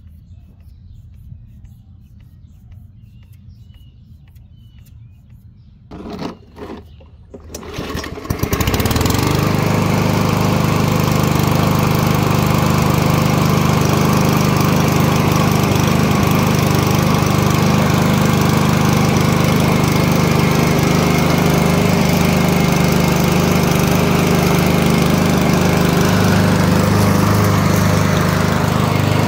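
Husky 21-inch push mower's MTD single-cylinder engine being pull-started: two short tugs about six seconds in, then it catches about eight seconds in and runs steadily. The engine now runs after a carburetor cleaning that cured its no-start from old, varnished gas.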